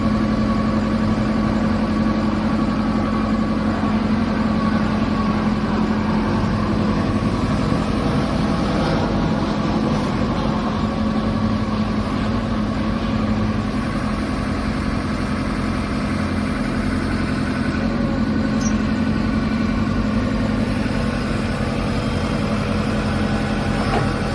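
JCB 3CX Sitemaster backhoe loader's diesel engine idling steadily, with a constant low hum and no revving.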